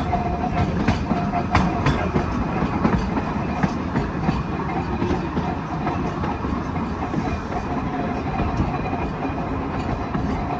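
Double-truck Birney streetcar, built in 1926 by the St. Louis Car Company, running along the track: a steady rumble of steel wheels on rail, heard from aboard the car, with scattered clicks over the rail joints, most of them in the first few seconds.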